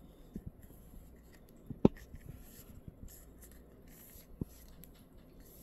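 Faint rubbing and small ticks of a Quad Lock MAG phone case being turned over and flexed in the hands. There is one sharp click a little under two seconds in and a smaller one about two and a half seconds later.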